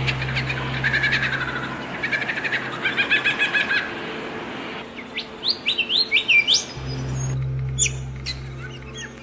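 Songbirds singing: fast trills of rapidly repeated notes, then about a second and a half of sweeping whistled notes that slide up and down, over a steady low hum.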